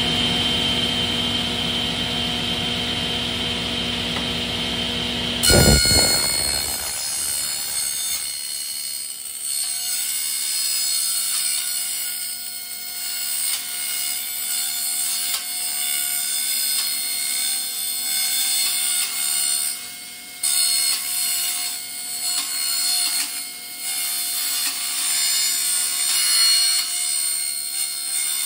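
Table saw with a carbide-tipped blade running steadily, then biting into the stainless steel wall of a vacuum flask with a loud hit about five seconds in. After that, a high-pitched ringing screech of metal being cut, rising and dipping as the flask is turned against the blade.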